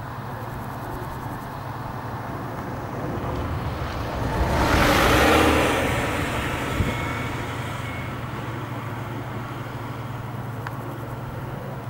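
Deutz-Fahr StarLiner 4045H combine harvester running steadily while threshing grain, a low hum from the machine throughout. A broad rushing noise swells up and dies away in the middle.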